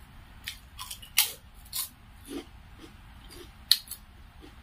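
Close-miked eating sounds: wet chewing with lip smacks and sharp mouth clicks, coming irregularly, the loudest just after a second in and again near the end.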